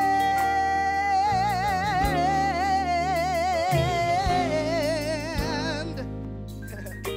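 Female gospel singer holding one long, wordless note over instrumental accompaniment; from about a second in it swells into a wide vibrato, then steps down to a lower note and fades away near the end.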